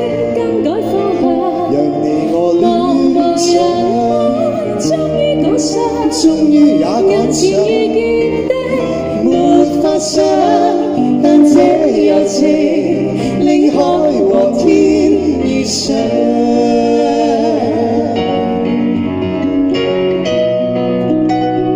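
A man and a woman singing a Cantonese pop duet live over band accompaniment, amplified through microphones and PA speakers.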